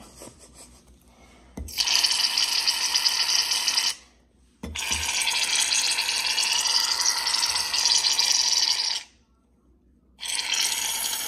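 Aerosol can of shaving cream hissing as foam is sprayed out in three bursts: a short one, a longer one of about four seconds, and a third that starts near the end.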